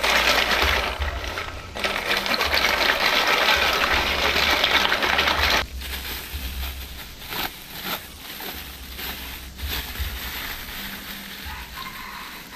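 Apple snails being scrubbed by hand with salt in an aluminium basin of water: shells rattling and grinding against each other and water sloshing, loud and dense, stopping after about five and a half seconds. Then a thin plastic bag being handled, crinkling, with a few light clicks.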